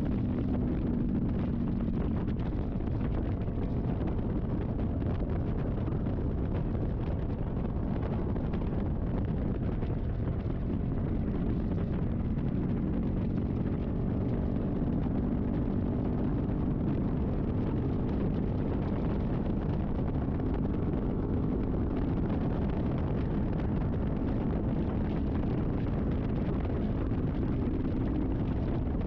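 Kawasaki Vulcan S 650's parallel-twin engine running steadily while the motorcycle is ridden, with wind rushing over the microphone.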